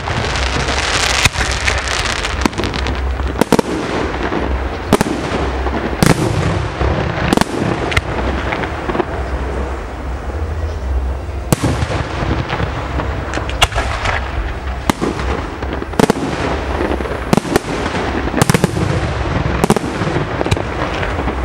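Aerial fireworks shells bursting, sharp bangs about every second with a steady crackling hiss between them. A lull of a few seconds comes midway.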